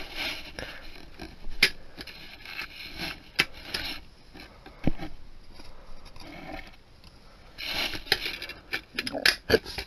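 Plastic DVD case and discs being handled: scraping with a few sharp clicks as discs come off and go back onto the case's centre hub, and a quick run of clicks near the end.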